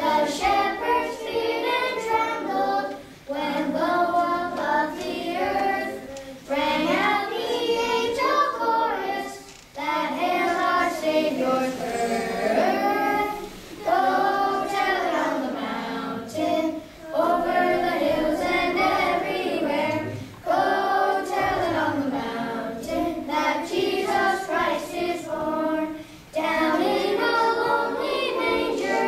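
A children's choir singing together, line by line, with short breaks between phrases.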